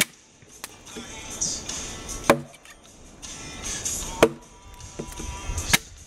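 Bushcraft axe chopping into a log: four heavy strikes about two seconds apart, with a lighter knock just after the first, over soft background music.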